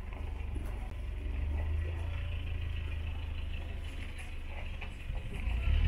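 A steady low rumble with a faint hiss above it and a few faint ticks.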